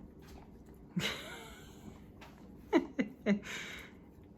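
Siberian husky licking sticky peanut butter, with a breathy rush about a second in, then three quick squeaky sounds that each slide down in pitch, and a short breathy puff after them.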